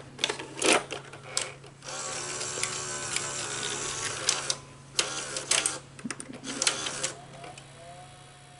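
Betamax video recorder's tape mechanism working: a run of clicks, then a steady mechanical whir for about two and a half seconds, more clicks, and near the end a rising whine that settles into a steady tone, over a constant low hum.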